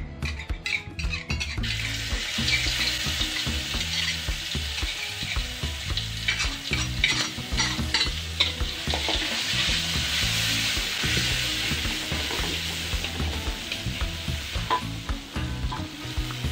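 Chili sambal scraped from a stone mortar into a hot oiled wok with a metal spatula, sizzling and frying as it hits the oil and is stirred, with spatula scrapes and clinks against the mortar and wok. The sizzle starts about two seconds in and keeps on.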